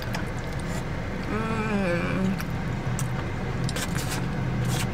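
Eating sounds in a car: chewing and chopsticks clicking against a plastic takeout container, with a short falling "mmm" of enjoyment about a second and a half in. Under it runs the steady low hum of the car's running engine and air conditioning.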